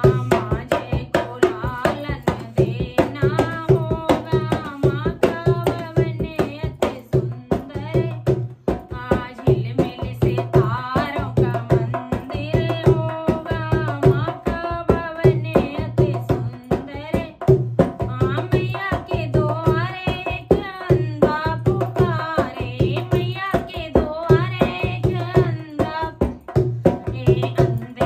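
A woman singing a Hindu devotional bhajan to her own dholak, the two-headed barrel drum struck by both hands in a rapid, steady beat under her voice.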